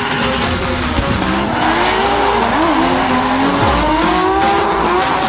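Drift car's engine revving up and down, its pitch rising and falling several times, with tyres squealing as the car slides.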